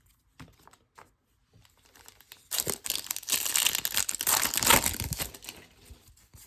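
Foil trading-card pack wrapper being torn open and crinkled, a dense crackle that starts about two and a half seconds in and lasts nearly three seconds, with light clicks of card handling before it.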